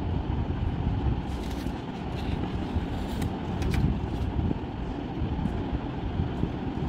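Steady low background rumble, with a few short faint ticks about one and a half, three and four seconds in.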